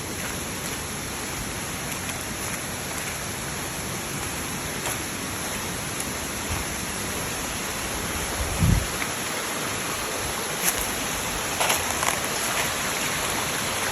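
Steady rush of water noise, even and unbroken, with a single low thump a little past the middle and a few faint light knocks near the end.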